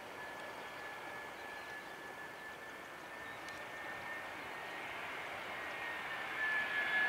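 Airbus A319's CFM56 turbofan engines on final approach: a steady high whine over a rushing hiss, slowly growing louder as the airliner nears.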